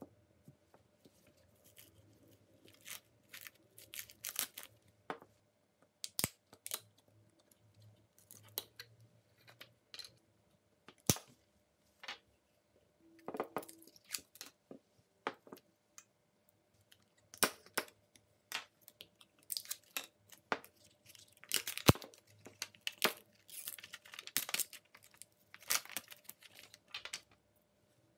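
Mold walls and clear plastic film being pried and peeled off a cured epoxy resin block with a small wooden-handled knife: irregular tearing, scraping and crinkling, with a few sharp clicks, the loudest a little after the middle.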